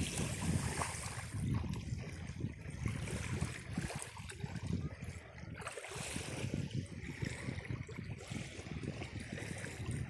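Wind buffeting the microphone with an uneven low rumble, over gentle sloshing of shallow sea water.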